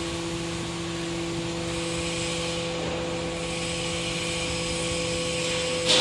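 Hydraulic scrap metal baler's power unit running steadily: a constant hum with a steady whine over a hiss.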